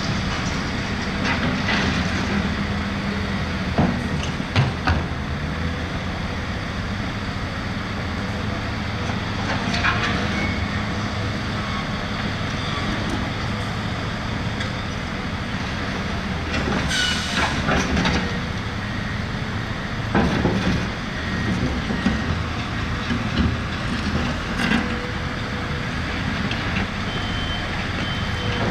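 Heavy diesel engines of a wheel loader and truck running steadily, with several clanks and knocks and a short burst of hiss partway through. A reversing alarm starts beeping near the end.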